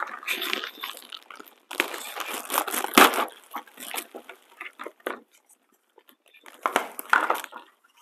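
Thin plastic bag crinkling and rustling in bursts as it is pulled open and the plastic accessories inside are handled. A single sharp knock sounds about three seconds in.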